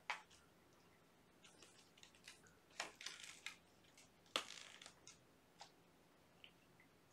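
Kittens at play, paws scuffling and scratching on carpet and toys: a few short scratchy rustles, loudest right at the start and about four and a half seconds in, with fainter ticks between.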